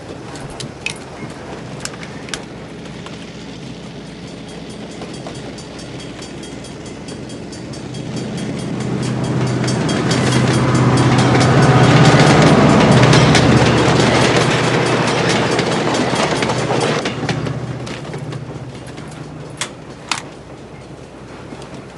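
A train passing: a rumble that swells over several seconds to its loudest about halfway through, then fades, with sharp clacks of wheels over the rails near the start and near the end.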